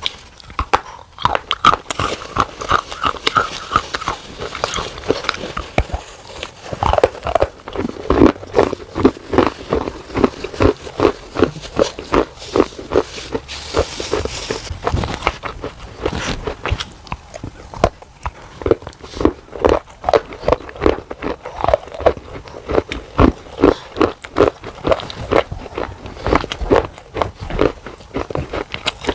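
Pieces of baked clay pot being bitten and chewed: a dense run of sharp, crackly crunches with a few brief lulls.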